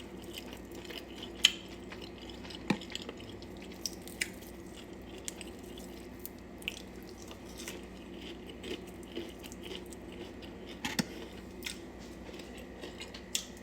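A person chewing food, with scattered wet mouth clicks and bites, over a faint steady hum.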